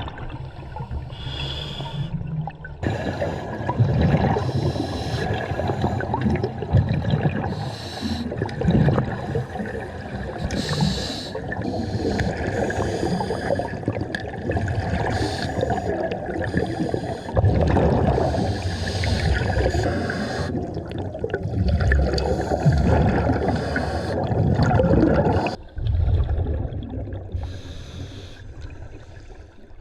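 Scuba diver breathing through a regulator underwater, with long surges of rushing, gurgling exhaust bubbles.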